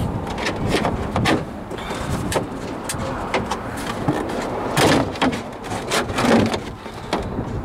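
Irregular light clicks, knocks and rustles of handling over a steady low rumble, a little louder around the middle.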